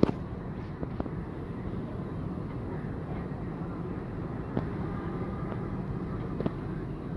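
Steady low background rumble, with a few faint sharp clicks.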